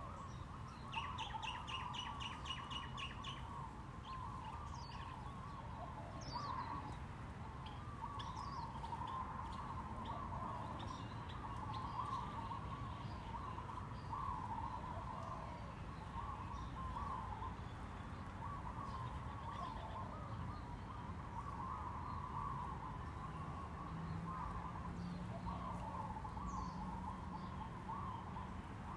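Birds chirping and twittering, with a quick trill of rapidly repeated notes about a second in; a low steady hum runs underneath.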